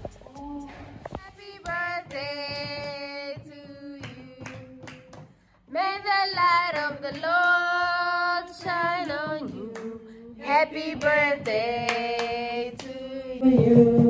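A small group of women and children singing a birthday song together in long held notes, with some hand clapping. The singing stops dead for a moment about five seconds in, then carries on.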